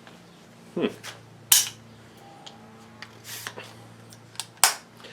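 AR-15 rifle parts with a .22LR conversion kit being worked by hand: a handful of sharp metallic clicks and clacks at irregular intervals, over a low steady hum.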